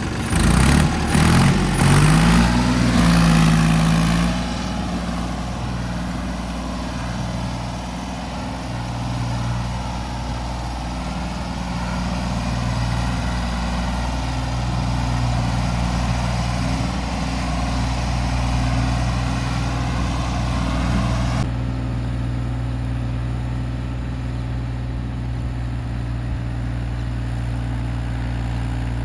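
Diesel engine of a construction vehicle revving up for about four seconds, then dropping back to a steady idle.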